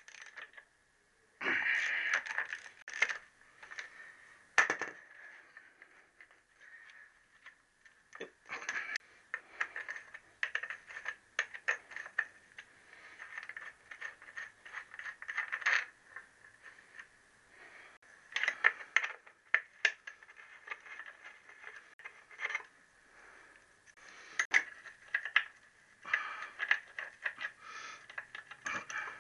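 Steel spanners working the engine plate nuts and bolts on a motorcycle, making irregular metallic clicks, clinks and scrapes as the nuts are turned and the tools are repositioned.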